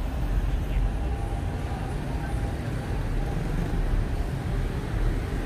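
Street traffic on a city road at night: motorbikes and cars passing, a steady rumble with no single event standing out.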